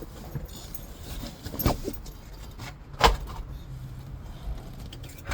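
A few sharp clicks and knocks of small hard objects being handled, the loudest about three seconds in, over a low steady hum.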